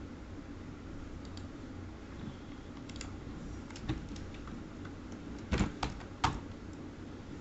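Computer keyboard keystrokes: a few scattered key clicks, with a short run of louder ones about five and a half to six seconds in, over a steady low background hum.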